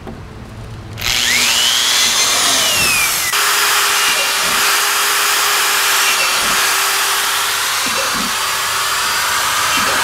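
Electric drill running, boring holes through a plastic basket; it starts about a second in and runs steadily.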